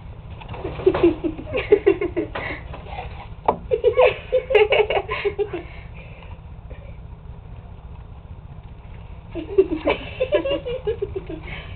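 A person laughing in three bouts of quick, pulsing giggles, the last near the end.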